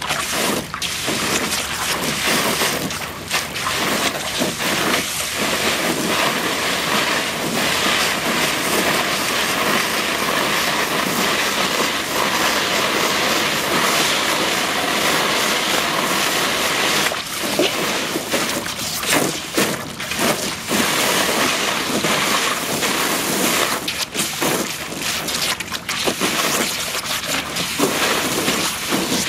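Garden-hose spray nozzle shooting a jet of water into a plastic kiddie pool: a steady hiss and splash, broken briefly now and then as a dog bites and paws at the jet and splashes in the water.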